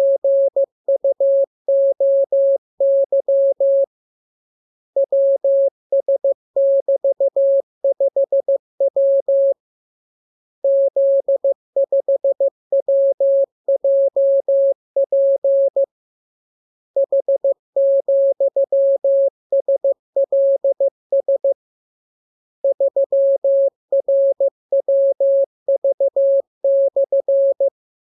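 Morse code (CW) practice signal: a single steady tone of about 600 Hz keyed on and off in dots and dashes, sent as groups of characters lasting four to five seconds each, with about a second's pause between groups.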